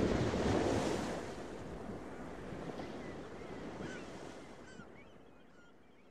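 Ocean surf washing in and slowly fading out, with short high bird calls coming in during the second half.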